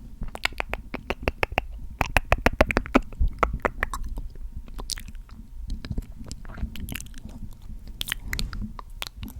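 Close-miked ASMR mouth sounds: wet lip smacks and clicks in quick succession, thinning out after about four seconds.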